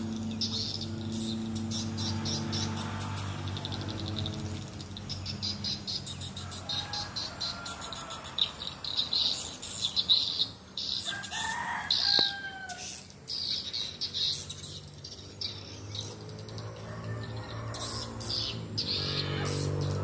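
Swiftlets twittering: rapid high chirps in quick clusters, with a few gliding call notes near the middle. A low steady hum sits beneath, strongest at the start and again near the end.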